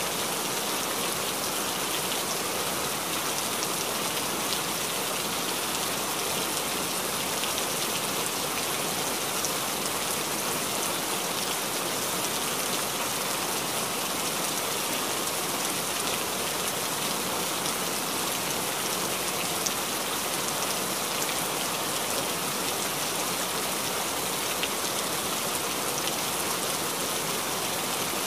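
A steady, even hiss of noise with faint scattered ticks through it, unchanging in level throughout.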